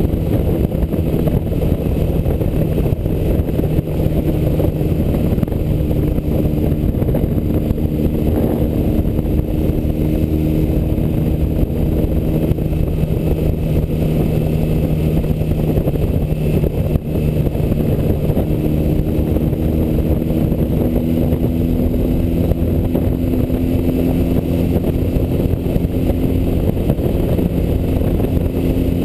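BMW R75 air-cooled flat-twin (boxer) motorcycle engine running at a steady cruise, heard from the rider's seat over wind and road rush. The engine note holds steady, then rises gently about two-thirds of the way in.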